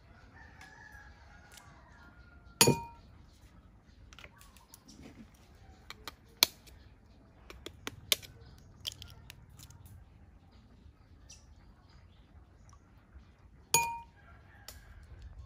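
Duck eggs cracked against the rim of a stainless steel bowl: two sharp knocks, one about two and a half seconds in and one near the end, each leaving a brief metallic ring, with lighter clicks of shell in between. A rooster crows faintly in the background near the start.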